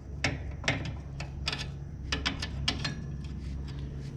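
Hand wrench clicking against a steel bolt and bracket as it is worked into place: about a dozen sharp, irregular metallic ticks.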